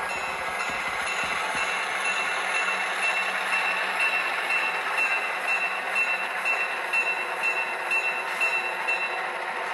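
LokSound 5 sound decoder in an HO-scale diesel locomotive model playing diesel engine sound through its small onboard speaker, with the locomotive bell ringing about twice a second. The bell stops shortly before the end.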